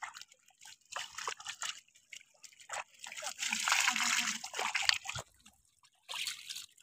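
Small fish flapping and wriggling in a wet mesh net, giving scattered wet patters and clicks. About three seconds in, a louder wet rustle and slosh lasts a couple of seconds as the net is lifted and shifted.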